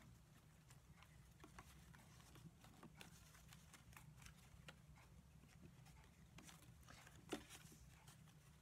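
Faint, scattered clicks and rustles of basket reeds being handled and woven through the stakes of a square basket, over a low steady hum. One click about seven seconds in is a little louder.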